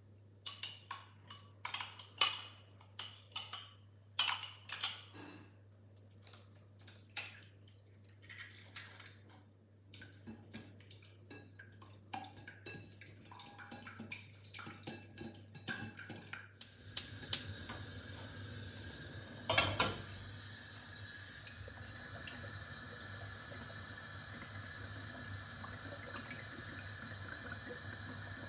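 Kitchen utensil sounds: clinks and knocks against a glass mixing bowl, then a silicone whisk beating batter in the bowl with quick scraping strokes. About 17 seconds in, a steady hissing stream of liquid begins and runs on, with one sharp knock a few seconds later.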